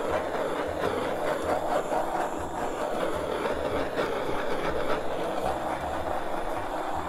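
Handheld butane torch flame running with a steady hiss as it is swept over wet epoxy resin to pop surface bubbles.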